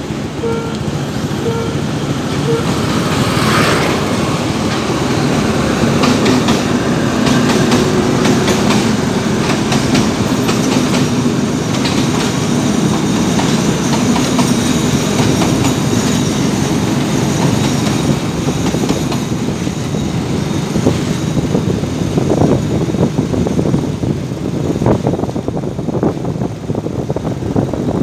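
A level-crossing warning signal pulsing for the first couple of seconds. Then three coupled diesel locomotives pass with a steady engine drone, their wheels clicking over the rail joints.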